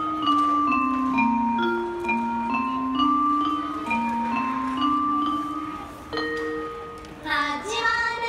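Light instrumental background music: a simple stepping melody of held, bell-like notes over a lower line, with a quick flourish of bright notes about seven seconds in.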